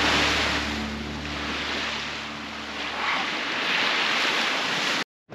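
Small waves breaking and washing up the beach, the surf rising and falling in swells, with wind on the microphone. The sound cuts off suddenly near the end.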